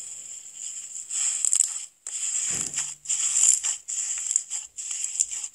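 Fluffy rainbow slime being stretched and squeezed by hand in a bowl, giving crackling, squishing sounds in bursts with short gaps between them.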